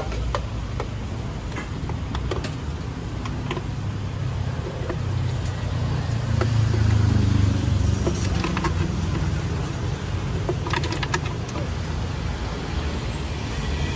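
Street traffic: a steady low engine rumble that swells about halfway through as a vehicle passes close by, with scattered light clicks over it.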